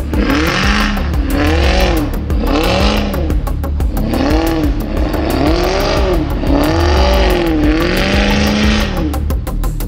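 Range Rover Supercharged's supercharged V8 through a Guerrilla aftermarket exhaust, revved up and down over and over, about once a second, while the car slides with its wheels spinning on snow. Each rev rises and falls in pitch, and a hiss comes with it.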